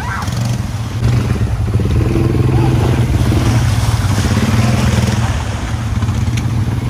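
ATV quad bike engine running under throttle, getting louder about a second in and easing off a little near the end.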